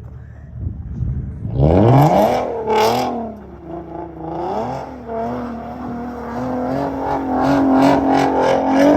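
All-wheel-drive car's engine revved hard while the car is slid around, the revs climbing sharply about a second and a half in, then wavering up and down and held high with rapid pulsing near the end.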